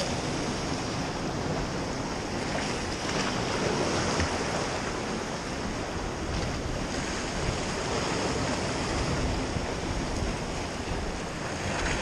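Sea surf washing against the rocks of a stone jetty, a steady rushing wash, with wind buffeting the microphone.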